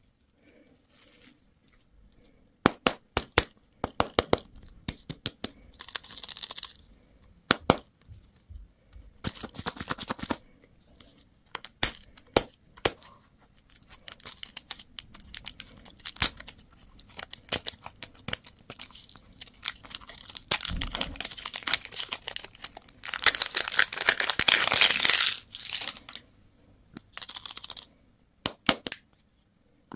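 Candy and toy packaging being opened by hand: wrappers crinkling and tearing, mixed with many sharp plastic clicks and snaps. The longest and loudest stretch of tearing comes near the end.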